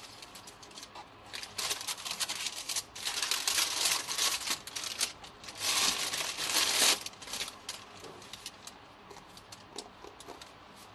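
Wrapping tissue paper crinkling and rustling as a shoebox is unpacked by hand. It is a run of crackles from about a second and a half in to about seven seconds in, then only faint scattered handling ticks.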